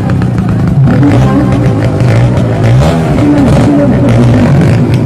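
Small motorcycle engine revving hard as it rides around the steep dirt wall of a pit, its pitch rising and falling over and over.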